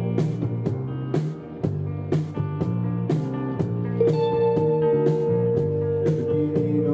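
Rock band playing: guitar and bass notes over a steady drum beat with cymbal hits about twice a second. A long held high note comes in about four seconds in.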